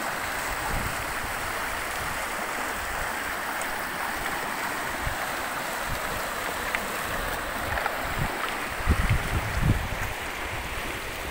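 River rapids rushing steadily over rocks, a continuous even hiss of moving water. A few brief low thumps sound about nine seconds in.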